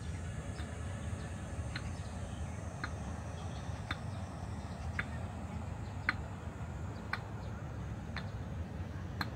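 Short sharp ticks repeating evenly about once a second over a steady low outdoor rumble.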